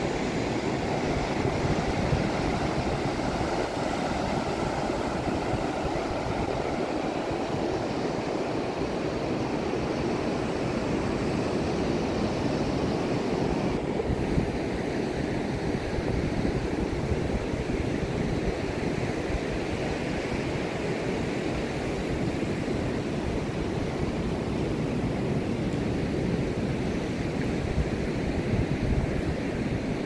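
Surf breaking on a sandy beach, a steady wash of waves, with wind buffeting the microphone.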